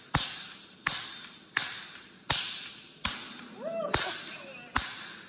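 Hand hammer striking hot steel on an anvil while forging a knife blade: about seven even blows, a little under a second apart, each with a bright metallic ring that fades before the next.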